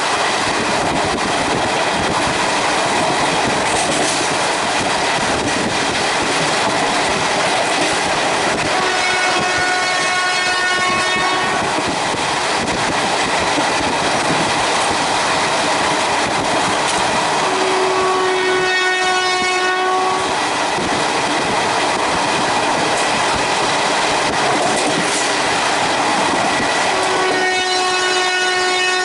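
Horn of a WAP4 electric locomotive hauling an express, sounded in three blasts of about two seconds each, roughly eight seconds apart, over the steady running noise of the train at speed.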